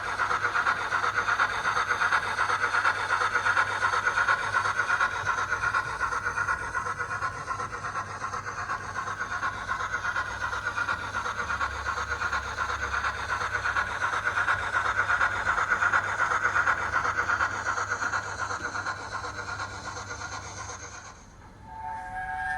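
Model steam locomotive sound from a Zimo DCC sound decoder playing an LNER A4 sound file through a small speaker: continuous fast steam exhaust and hiss of a locomotive running. It fades away about 21 seconds in, and a chime whistle starts near the end.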